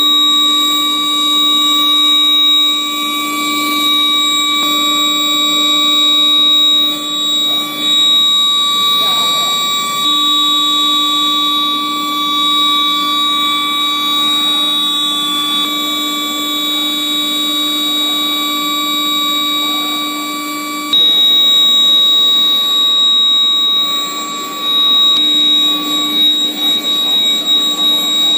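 Electric induction heating furnace for steel bars running with a loud, steady, high-pitched electrical whine made of several held tones, which shift briefly every few seconds.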